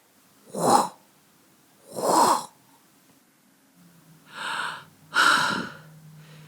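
A person breathing heavily and puffing with effort, four loud breaths a second or so apart, the last two closest together.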